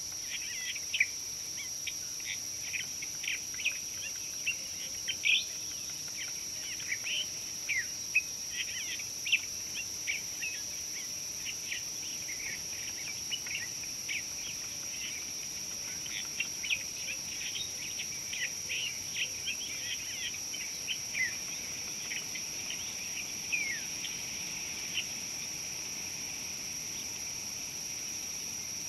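Small birds chirping in quick, irregular short calls, some sliding down in pitch, thinning out near the end. Underneath is a continuous high-pitched insect drone.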